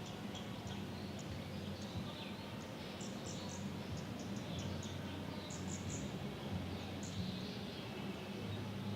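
City park ambience: a steady low city rumble with many short, high bird chirps over it, coming in small clusters about three and five and a half seconds in.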